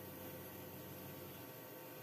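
Spray booth extractor fan running: a faint steady hiss with a low hum.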